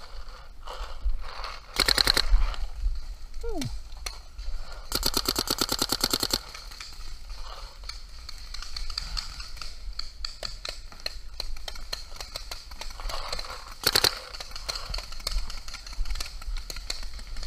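Paintball marker fire: rapid strings of shots, a run of about a second some two seconds in, a longer one of about a second and a half near five seconds in, and a short burst near the end, with scattered single shots between.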